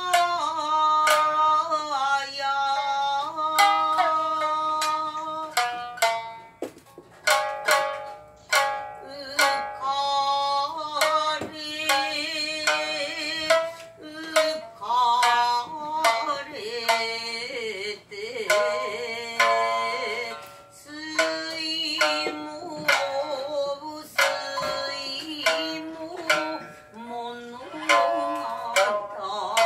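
Shamisen plucked with a plectrum in sharp, spaced strokes, accompanying a woman's singing in long held notes that waver in pitch.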